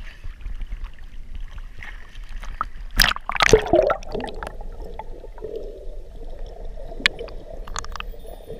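Sea water sloshing against a camera at the surface, then a loud splash and gurgle about three seconds in as it goes under. It is followed by muffled underwater hiss with a few sharp clicks near the end.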